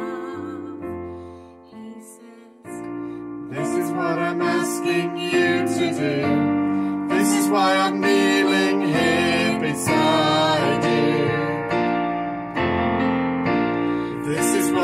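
Piano or keyboard music. It dies down about two seconds in, then a fuller, louder passage comes in.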